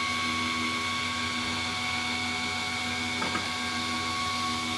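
Small table saw running at speed with its blade spinning free and no wood being cut: a steady, even motor hum with a high tone above it.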